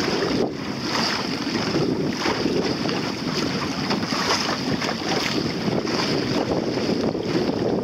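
Wind buffeting the microphone over the steady rush and slap of water along a small sailboat's hull as it sails through light chop.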